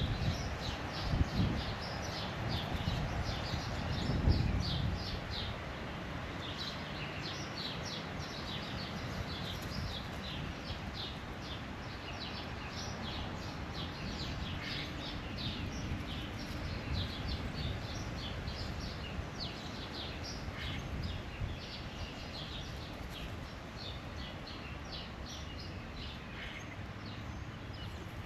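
Birds chirping in a steady stream of short calls over an even outdoor background noise, with a few low bumps in the first few seconds.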